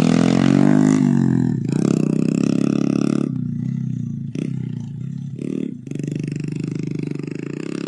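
Trail motorcycle engine running close by, revving with its pitch swinging up and down in the first second or so, then settling to a steadier run. The sound drops briefly twice, about four and about six seconds in.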